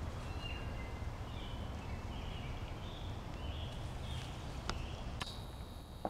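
Woodland ambience: small birds chirping over a steady low rumble, with one sharp click about four and a half seconds in.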